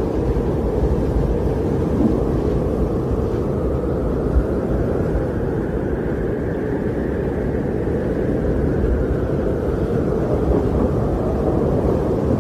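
Strong wind blowing in a steady low rush, swelling and easing slowly over several seconds.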